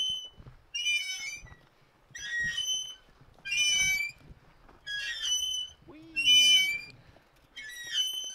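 Squeaking of an old metal chain swing as it swings back and forth: a high, whistle-like squeak about every one and a half seconds, roughly seven times.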